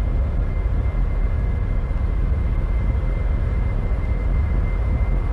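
Aircraft engine noise: a steady rumble with a thin, steady high whine above it.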